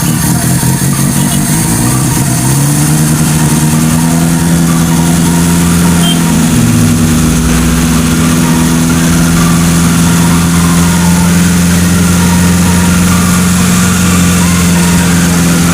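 Old Toyota Corona car engine running, uneven for the first couple of seconds, then brought up to a higher speed about two and a half seconds in and held there steadily. The engine is running again after its age-worn ignition coil, blamed for the stalling, was replaced.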